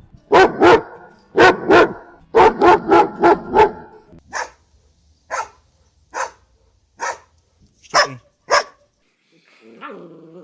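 Dog barking: loud barks in quick pairs and runs of several, then single sharper barks about once a second, ending with a lower rough, growl-like sound.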